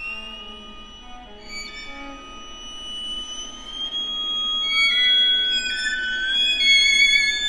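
Film score music on bowed strings: long held high notes that slide upward in pitch, with short notes beneath, growing louder toward the end.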